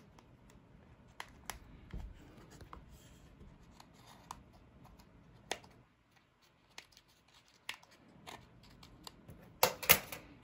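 Small scissors snipping through the leathery shell of a blood python egg: scattered short snips and clicks. Near the end come two much louder sharp bursts.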